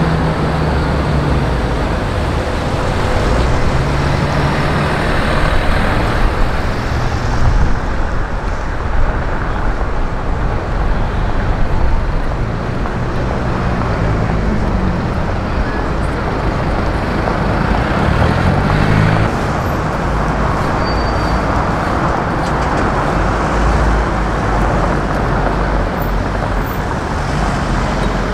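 City street traffic: vehicle engines running and passing over a steady low rumble, with engine notes that rise and fall in pitch a couple of times as vehicles move off or go by.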